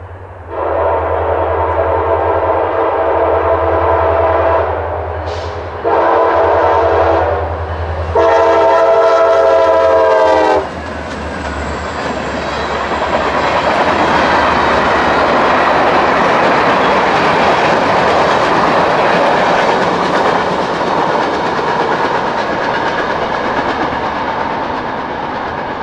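CSX freight train's diesel locomotive horn sounding three blasts at a grade crossing: a long one, a short one, then a longer, louder one. After that the locomotive and freight cars roll past with steady wheel clatter on the rails, fading slowly as the train moves away.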